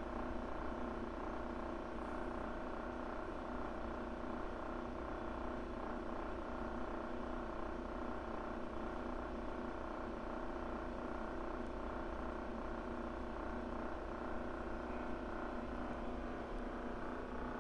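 Steady machine hum made of several constant tones, unchanging throughout.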